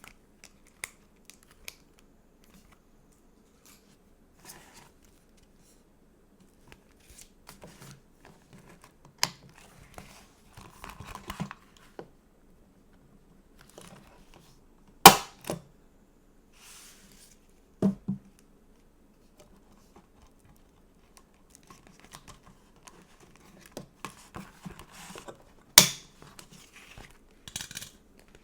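Stickers and a sticker book being handled: stickers peeled from their sheets, with short paper rustles and scattered sharp taps and clicks. The loudest clicks come about halfway through and again near the end.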